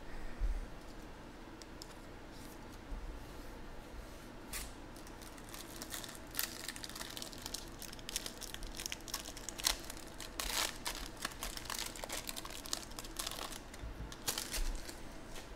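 A shiny plastic trading-card pack wrapper being torn open and crinkled by hand, in irregular crackles that come sparsely at first and thickly through the second half.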